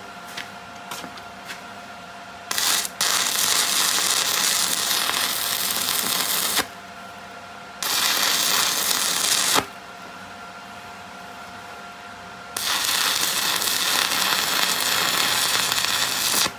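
Wire-feed welder running beads on a steel mower spindle: three long runs of loud, even hiss, about four, two and four seconds long, with a few brief blips in the first two seconds and a faint steady hum in the gaps between runs.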